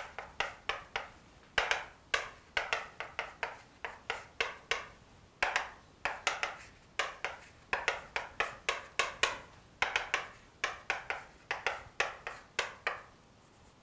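Chalk writing on a chalkboard: quick taps and short scratchy strokes, several a second, in irregular clusters with brief pauses between them.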